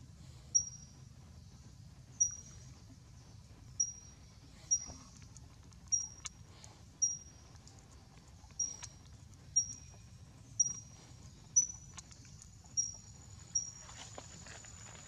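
A bird repeating a short, high chirp about once a second over steady forest background noise. Near the end, a spell of rustling, like leaves being moved.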